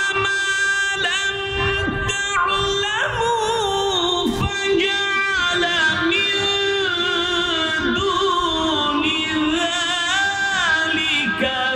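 A man reciting the Quran in the melodic, drawn-out tajwid style, holding long notes and winding them through ornamented turns without a break.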